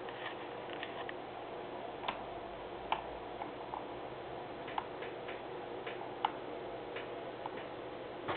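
Computer mouse clicks and scroll-wheel ticks, about fifteen sharp clicks at uneven intervals, over a steady background hum.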